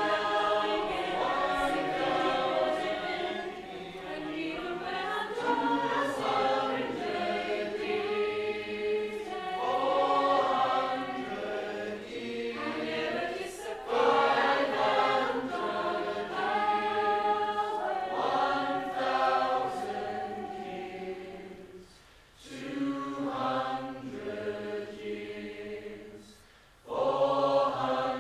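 A group of voices singing together in held, layered chords, largely unaccompanied, with two short breaks in the last third.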